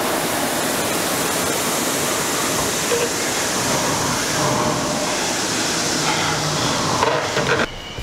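Concept2 indoor rower's air-resistance flywheel whooshing steadily under hard rowing near the end of a 3-minute interval, the fan set at a drag factor of 110. The whoosh drops off sharply near the end.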